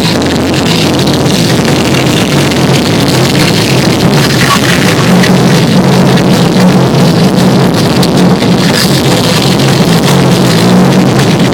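Loud, heavily distorted live rock music, dense and unbroken.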